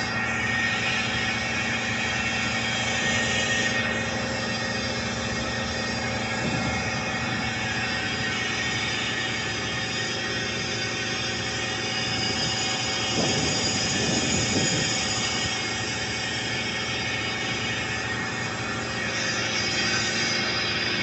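Steady mechanical drone of running industrial machinery, several constant tones over a hiss. A brief wavering sound comes in about two-thirds of the way through.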